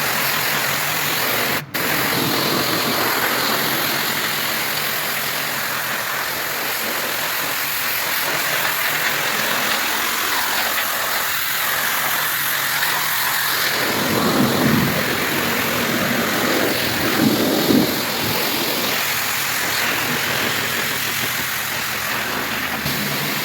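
Pressure washer running, its water spray a steady hiss over an engine hum. There is a brief dropout about two seconds in, and two short louder low surges past the middle.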